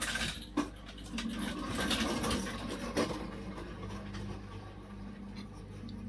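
Light scratching and a couple of short clicks from hands handling freshly cast soft plastic lures and a small metal mold on a stainless steel tabletop, over a steady low hum.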